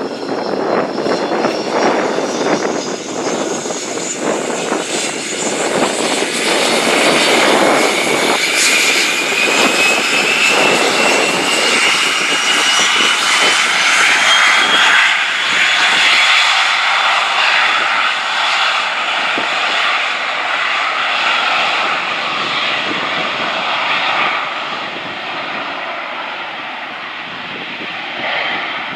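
Business jet's engines spooling up to takeoff power with a rising whine, the jet noise peaking about halfway through and then slowly fading as the aircraft rolls away down the runway.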